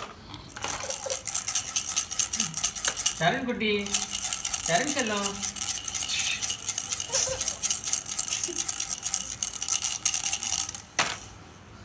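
Small hard objects rattling and clattering in rapid, irregular clicks, as if shaken or knocked about in play, with two short vocal sounds gliding in pitch around the middle.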